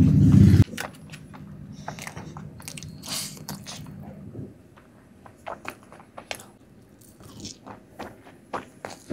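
Close-miked chewing and biting of soft Indian sweets, with wet mouth clicks and smacks scattered through. It opens with a loud low sound lasting under a second.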